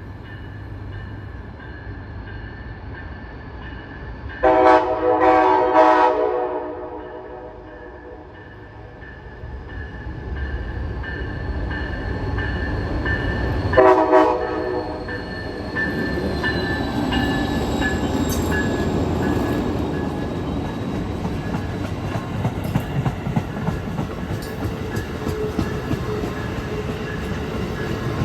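Amtrak passenger train's locomotive air horn sounding a blast about four seconds in and a short blast near the middle. The train then rolls past with a rising rumble and wheels clicking over the rail joints.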